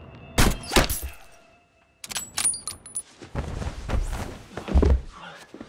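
Two sharp impacts close together, then a few metallic clicks and rattles, then a scuffle of rustling with dull thumps: film fight sound effects of a struggle in a bed.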